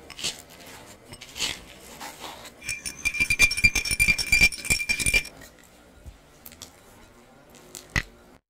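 A spoon scraping and clinking in a glass bowl as biscuit crumbs are mixed. Then, for about two seconds, a wire whisk beats a liquid in a ceramic bowl, its wires clattering rapidly against the sides with a ringing tone. A single sharp knock comes near the end.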